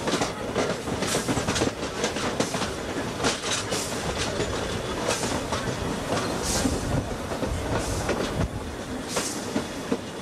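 Queensland Rail A10-class steam locomotive No. 6 running along the track, heard from its footplate: a steady rumble and wheel-on-rail clatter, with short hissy bursts every second or so.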